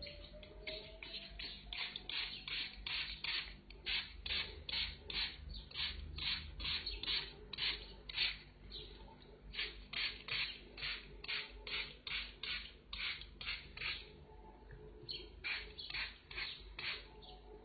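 A refrigerator surface being scrubbed by hand, with quick back-and-forth rubbing strokes at about two or three a second and a short pause near the end.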